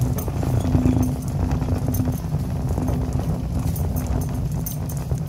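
Shopping cart rolling along a store floor, its wheels rattling continuously.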